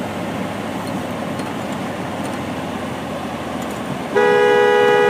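Steady running noise from an idling vehicle, then a car horn sounds once, a loud steady honk lasting about a second, near the end.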